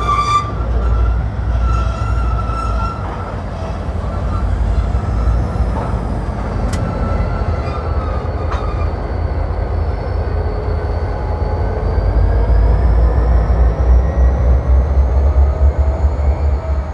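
Diesel freight locomotives pulling tank cars slowly along, their engines giving a steady deep rumble that grows louder about twelve seconds in as the lead unit draws close. Two sharp clicks come in the middle, and a faint high whine rises and falls near the end.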